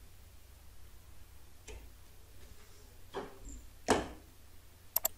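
Computer mouse clicking: a few single clicks, the loudest about four seconds in, then a quick double click near the end.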